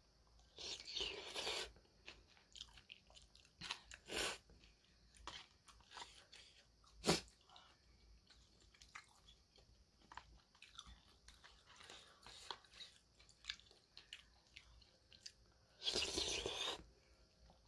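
A person eating noodles: two slurps of noodles off a spoon, about a second in and near the end, with quiet chewing and small clicks in between. One sharp click about seven seconds in is the loudest sound.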